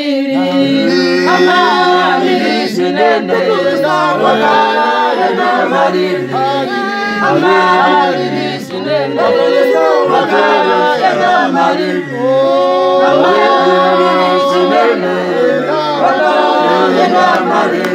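Church choir singing a hymn unaccompanied, several voices together in harmony with sustained notes.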